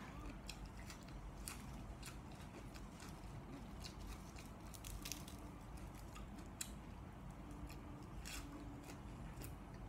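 Faint crisp clicks and crackles of fresh lettuce leaves being handled and folded around food by hand, with soft biting and chewing sounds as a wrapped mouthful is eaten.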